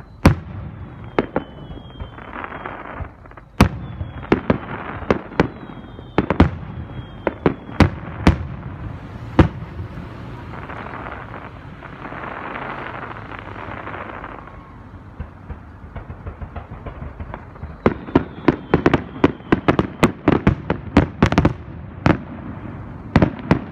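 Aerial firework shells bursting in a series of sharp bangs, with short whistles among them in the first several seconds and a stretch of hiss with few bangs in the middle. The bangs come thick and fast over the last six seconds: the final barrage of the display.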